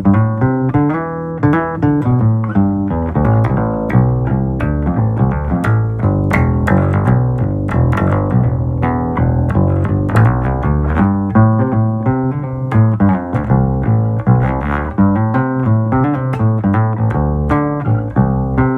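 Sigma BME+ acoustic bass guitar played in a busy, continuous line of plucked notes, several a second, with no pauses.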